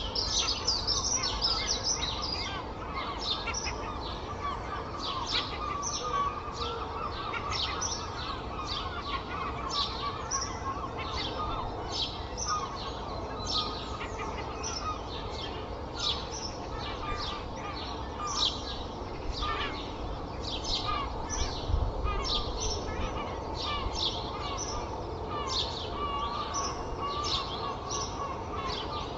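Dawn chorus: many songbirds chirping and trilling continuously, over a steady low rumble of distant traffic.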